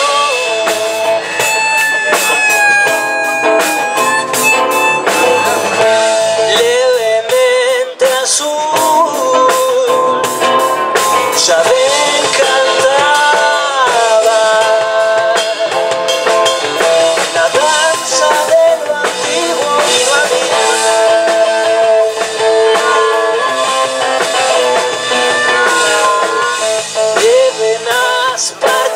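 Live band playing: acoustic guitar and a drum kit with cymbals, under a held, bending melody line.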